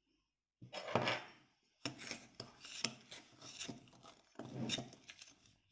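A metal spoon scraping and stirring through a dry flour-and-salt play-dough mixture in a bowl, in irregular rasping strokes starting about half a second in.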